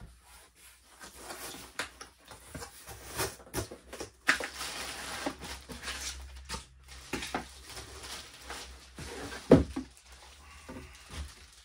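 Cardboard box being opened and unpacked: flaps and a cardboard insert scraping and rustling, and plastic wrap crinkling, with scattered knocks, the loudest about nine and a half seconds in.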